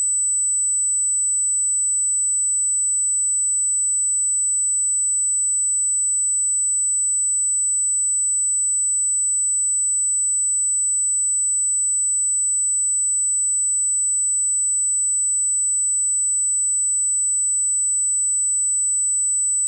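Pure 8 kHz sine-wave hearing-test tone: a single bright, piercing high pitch held perfectly steady at constant loudness.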